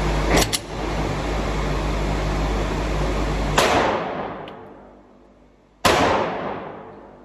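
Two gunshots about two seconds apart, each sharp crack trailing off in a long echoing tail. Before them a steady rushing noise with a quick double click about half a second in.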